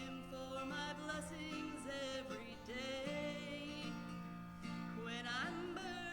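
Country-gospel style music: plucked acoustic guitar accompaniment under a melody line with vibrato.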